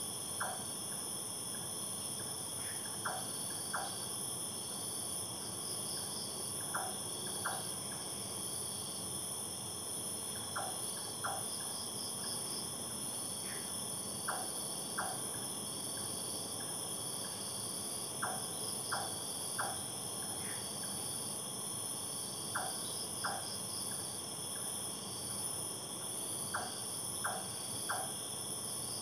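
Night insect chorus of crickets, a steady high-pitched trilling with a faster pulsing call layered in. Short chirps in twos and threes break in every few seconds.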